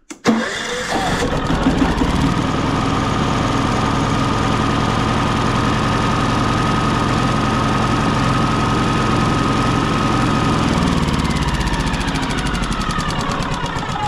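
Yamaha EF4500iSE inverter generator's single-cylinder engine started on its electric starter and running steadily, with a whine that falls in pitch near the end. The generator has a rough-running fault; it runs rough and dies under load, and this start follows tightening loose battery connections.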